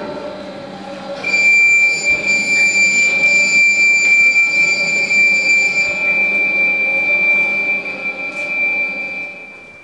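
A single high, steady tone starts about a second in and holds almost to the end, with fainter higher overtones that drop away after about six seconds.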